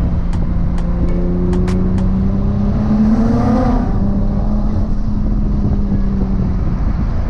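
Nissan GT-R R35's twin-turbo 4.1-litre VR38 V6 running steadily on the move, over a low rumble. The revs rise briefly about three seconds in, then settle back.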